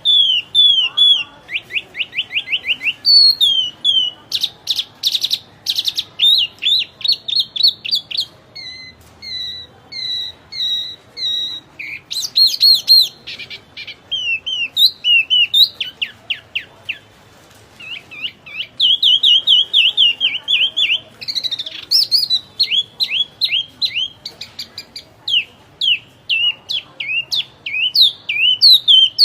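Wambi songbird singing a long, varied song of rapid chirps, slurred whistled notes and fast trills, broken only by brief pauses.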